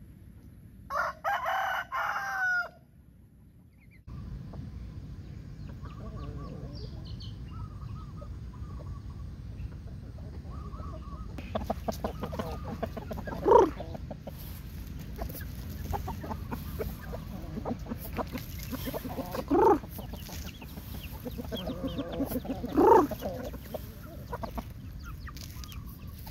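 Roosters crowing and clucking: a loud crow about a second in, then, after a short break, soft clucking over steady background noise, with three short loud calls spread through the second half.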